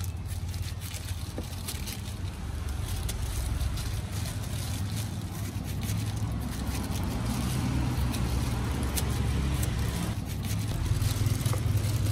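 Road traffic going by: a steady low engine rumble that swells louder over the last few seconds, with faint scattered clicks of a knife cutting fruit.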